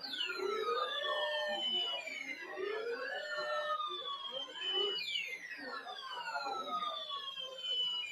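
Several siren-like whistling tones sweeping in pitch at the same time and crossing one another. Most fall slowly and a few rise, with a fresh set of sweeps starting near the beginning and again about five seconds in.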